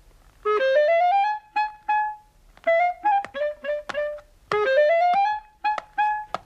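Background music: a clarinet-like woodwind melody with upward-sliding, scooping phrases, punctuated by sharp percussive knocks.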